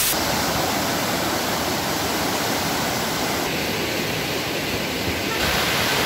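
Fast river water rushing over rapids: a steady, even rush of white water.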